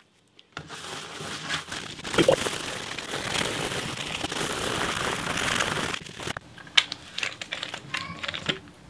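Bristle scrub brush scrubbing over a leaded stained-glass panel, working liquid patina into the solder seams: a steady scratchy rubbing for about five seconds. It then stops abruptly, followed by a few light clicks and taps as the brush and bottle are handled.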